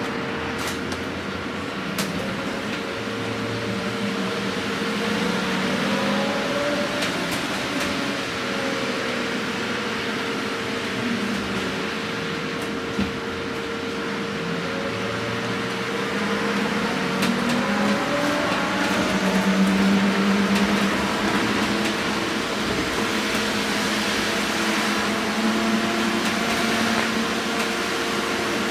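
Cabin of an Irizar ie bus 12 battery-electric city bus under way: tyre and road noise with a steady electrical hum, and the drive's whine gliding up and down in pitch as the bus speeds up and slows. It gets louder about two-thirds of the way through.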